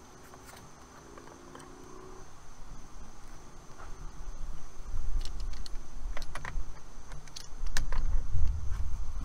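Metal hand tools clinking as an open-end backup wrench and a torque wrench are fitted onto a brass flare nut on copper tubing, several sharp clinks clustered about halfway through. A low rumble builds from a few seconds in and becomes the loudest sound, under a faint steady high tone.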